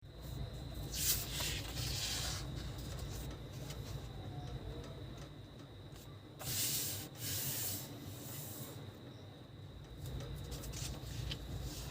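A sheet of paper rubbed and rustled as it is folded and creased by hand, loudest in two bursts about a second in and about six and a half seconds in. A steady low hum runs underneath.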